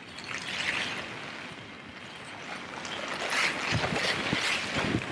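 Storm wind gusting against a tent, heard from inside, with the fabric buffeting; the gusts grow stronger about three seconds in.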